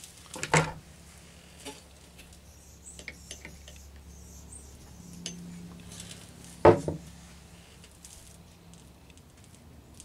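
Small hard objects handled and set down on a wooden work table: a sharp clack about half a second in and another near seven seconds, with a few light clicks between, over a low steady hum.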